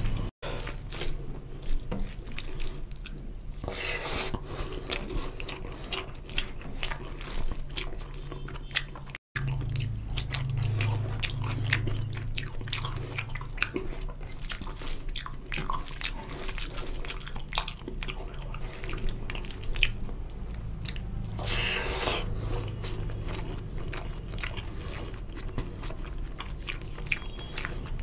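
Close-miked eating sounds: wet chewing and smacking of fried rice and chicken curry eaten by hand, with many small clicks and squelches as rice is kneaded into gravy, over a low steady hum. The sound cuts out briefly twice, near the start and about nine seconds in.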